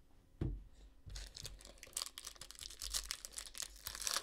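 A soft thump, then a foil trading-card pack being torn open and crinkled in the hands, a dense crackle from about a second in.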